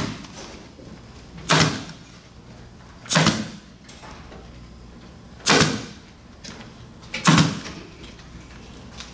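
Pneumatic upholstery staple gun firing four times, about every two seconds, each a sharp crack with a short tail, as it drives staples through the cane webbing to hold the spline down in its channel.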